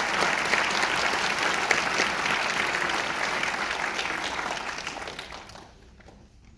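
Audience applauding, a dense patter of clapping that fades away about five to six seconds in.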